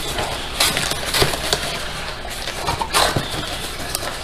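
Cardboard shipping box being opened by hand: the flaps rustling and scraping, with a few sharp knocks and crinkles.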